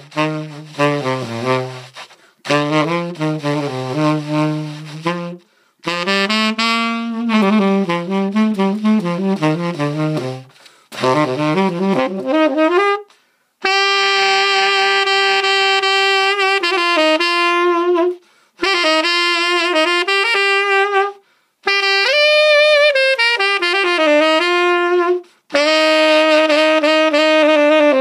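Tenor saxophone fitted with a vintage Lawton 6 Star B mouthpiece, played solo in jazz phrases: quick low-register lines in the first half, then longer held notes higher up, with short breath gaps between phrases.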